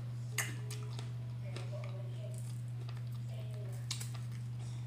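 Two light clicks and soft squishing from fingers picking food apart over a plate of rice, over a steady low hum.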